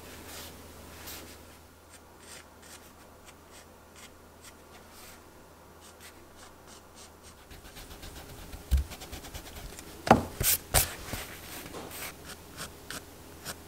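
Pencil drawing on sketchbook paper: light scratchy strokes at first, then firmer, denser strokes in the second half. A soft thump and a few sharp clicks come about two-thirds of the way in.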